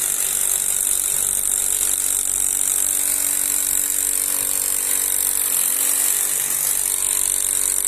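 Construction-site noise during demolition of a brick wall: a steady high hiss with a faint hum in the middle, without clearly separate hammer blows.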